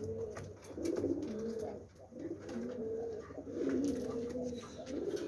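Golden Shakri domestic pigeons cooing, several low rolling coos one after another, with a few light clicks between them.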